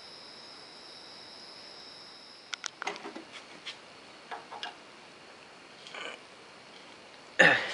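Small sharp metal clicks and scrapes as a screwdriver tip is worked into the slot of a seized screw holding the rack on a lathe bed, then a sudden loud sound near the end.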